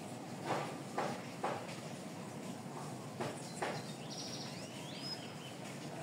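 Sharp knocks: three about half a second apart, then two more after a pause of over a second, over a steady background hiss.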